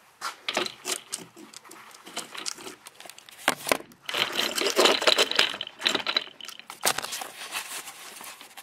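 Handling noise from a plastic paper towel dispenser and a shop-towel roll being tried in its roll holder: a run of clicks and knocks, with a longer stretch of scraping and rubbing in the middle.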